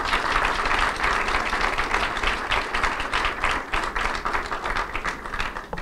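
Audience applauding, many hands clapping in a dense, steady patter that thins out near the end.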